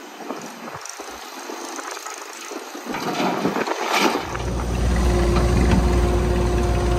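Diesel engine of heavy machinery running: a hiss with scattered clatter, then about four seconds in a loud, steady engine drone with a deep hum takes over.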